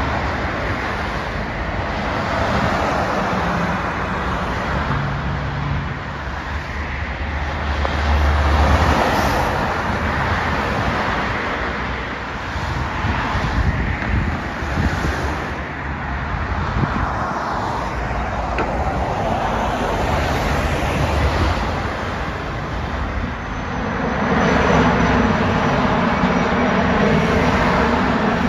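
Steady road traffic noise of cars and a bus passing on a busy road, mixed with the engine noise of a low airliner on landing approach. In the last few seconds a louder, steadily pitched hum and rotor noise from a military helicopter flying overhead.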